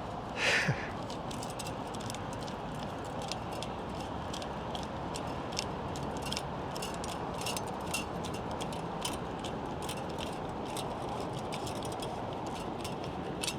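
Worm-drive hose clamp being tightened with a nut driver: many light, irregular metallic clicks, several a second, over a steady background hiss, with one louder brief sound about half a second in.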